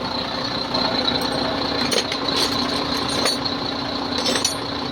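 Diesel engine of a HOWO 400 truck running at idle after injection-pump work to cure hard starting, a steady clattering hum with scattered sharp clicks and taps over it.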